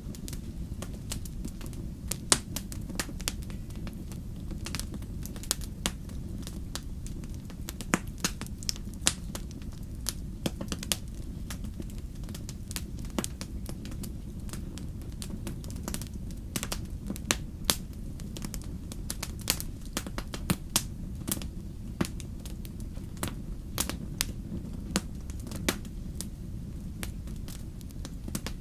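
Campfire burning: burning wood crackling and popping in sharp, irregular snaps over a steady low rumble.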